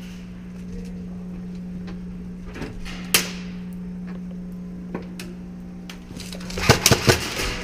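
Airsoft gunfire: a single sharp snap about three seconds in, then four or five sharp snaps in quick succession near the end, over a steady low hum.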